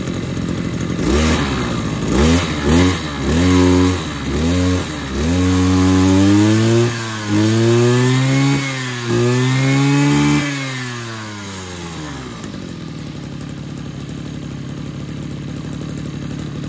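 Mitsubishi TU26 brush cutter's small two-stroke engine being test-run: it idles, is blipped about five times in quick succession, then revved up and down three times for a second or so each, and settles back to a steady idle about twelve seconds in.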